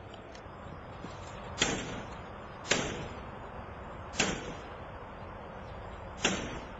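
A crowbar struck four times against a Tapco hurricane security screen over a window: four sharp blows a second or two apart, each ringing briefly.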